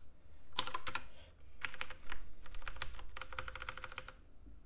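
Typing on a computer keyboard: a few quick runs of keystrokes, stopping about a second before the end.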